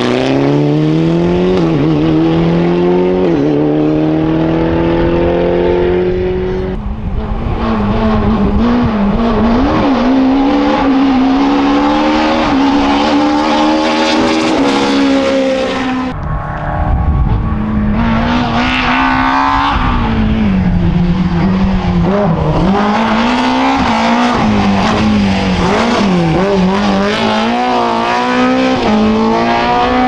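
Rally car engines at full throttle. First a Mitsubishi Lancer Evolution's turbocharged four-cylinder accelerates hard, its pitch climbing and dropping back at several quick gear changes. After a short break about halfway through, another rally car's engine revs hard, its pitch rising and falling as it drives through the bends.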